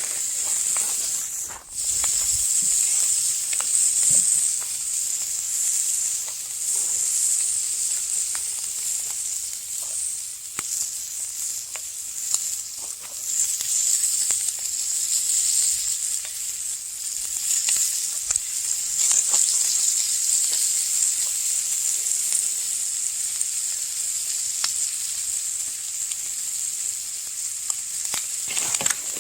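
Thick bacon slabs sizzling in a cast iron pan over an open fire: a steady high hiss with scattered small pops, dipping briefly about two seconds in.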